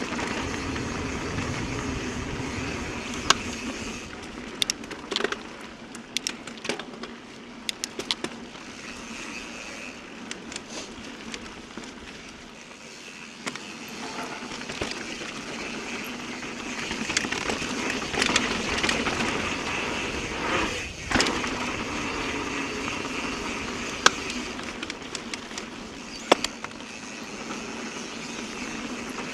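Mountain bike ridden over a dirt trail: tyres rolling and crunching, with sharp clicks and knocks from the bike rattling over bumps, rising and falling with speed.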